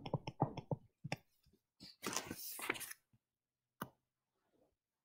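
Faint stylus taps and scratches on a tablet screen during handwriting: a quick run of light clicks in the first second, a short scratchy stretch about two seconds in, and a single click near the end.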